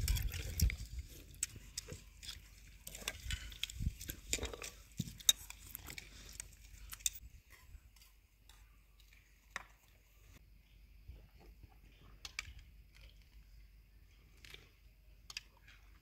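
Spoons clinking and scraping against ceramic bowls as people eat: a scatter of light, sharp clicks. A low rumble fills the first few seconds.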